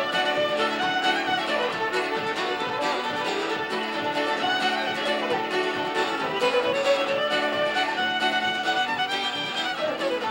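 Instrumental fiddle tune with a moving melody over a steady accompaniment.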